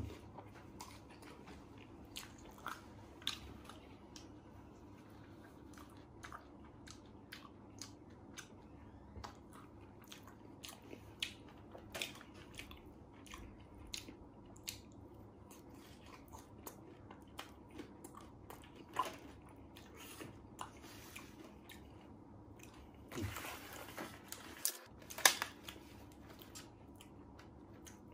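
A person chewing crispy battered fried mushrooms topped with cheese: scattered small crunches and mouth clicks, with a few louder ones near the end.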